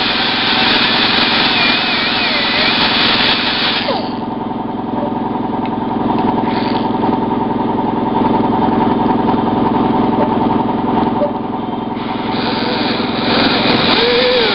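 Small high-speed power tool, such as a rotary tool, running steadily while it cuts down a plastic stub on a dashboard panel. Its higher sound drops away from about four seconds in and comes back near twelve seconds.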